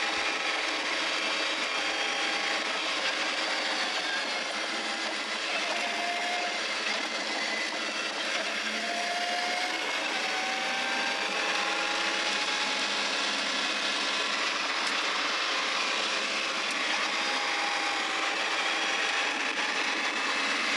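Mercedes-Benz CLK GTR Roadster's 6.9-litre V12 running under way, heard from the driver's seat over a steady rushing road and wind noise. Its pitch rises and falls a little in the middle as the revs change.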